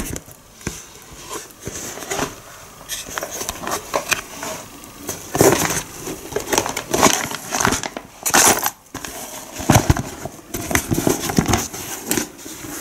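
Stiff waterproof fabric of an Ortlieb Ultimate 6 Classic handlebar bag being handled in both hands: irregular rustling, creasing and crackling as the bag is turned and pulled open.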